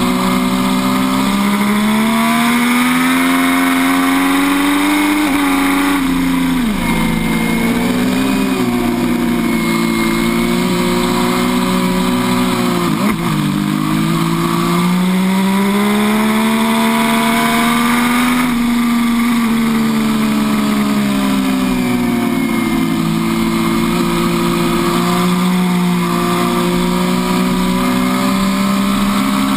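MV Agusta F3 800's inline three-cylinder engine at full throttle on track, its note climbing and falling through the gears, with sharp drops in pitch about six and thirteen seconds in. Heavy wind rush over the bike's fairing runs under it.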